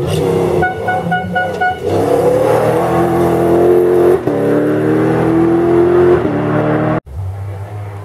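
Toyota rally-raid pickup's engine at full throttle, the pitch climbing and dropping twice as it shifts up through the gears. It opens with several short horn toots. Near the end the sound breaks off and a lower, steadier engine note of another car follows.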